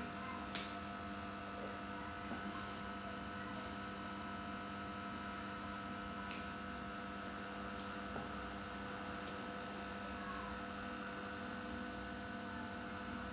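A steady hum made of several even tones, with two short clicks, one about half a second in and one about six seconds in.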